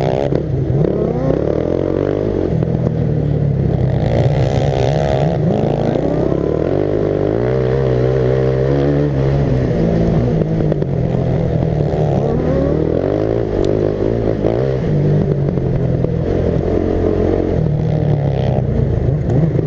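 Racing lawn mower's engine running hard, its pitch rising and falling with the throttle, dipping about eight seconds in and climbing again.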